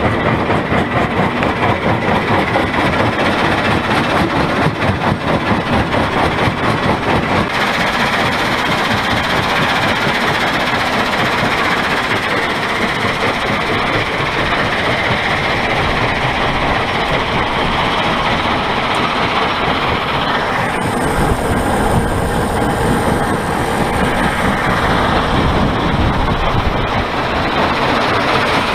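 Conveyor belt carrying 19 mm crushed stone: a steady, loud mechanical rumble and rattle of belt, rollers and stone. The sound changes character about a quarter of the way in and again about two-thirds in.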